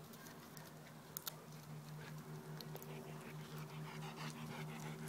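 Dogs moving about on dry forest ground: scattered light taps and rustles of their paws, with a faint steady hum underneath that grows a little louder in the second half.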